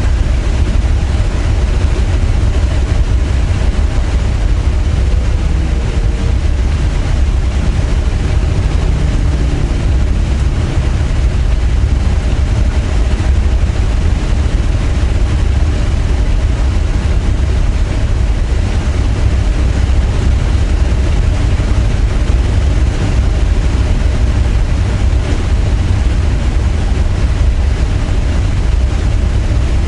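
Steady low rumble of vehicle noise, continuous and unbroken.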